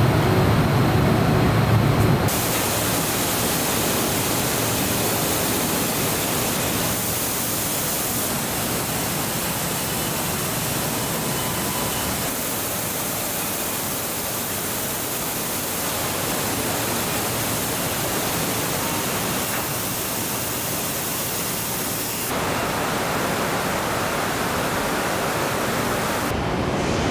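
Steady rushing hiss of a robotic car-body paint booth, its airflow and spraying robots running continuously. The hiss changes abruptly in tone several times as the shot changes.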